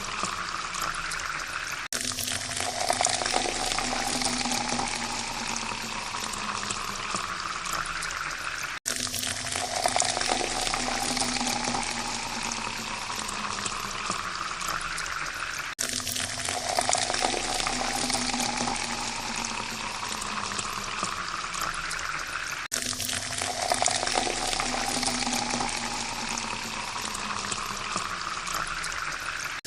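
Water pouring steadily into a glass, the pitch of the filling glass rising slowly as it fills. The pour breaks off and starts afresh about every seven seconds, as a repeating loop.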